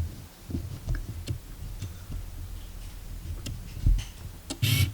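Handling noise: scattered low thumps and light clicks, with a stronger knock about four seconds in and a short rustle near the end.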